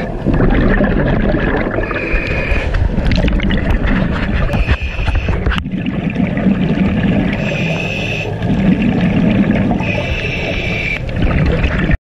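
Scuba breathing heard underwater through a regulator: a dense rumble of exhaled bubbles, with a higher hiss about every two and a half seconds as each breath is drawn.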